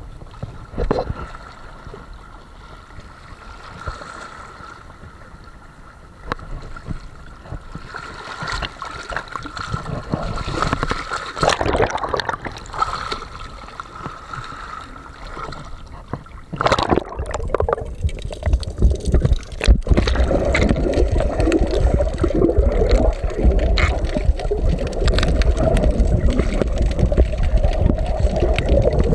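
Sea waves washing and splashing over shoreline rocks. A little over halfway through, the microphone goes under the sea and the sound turns to a loud, muffled underwater rumble and gurgle.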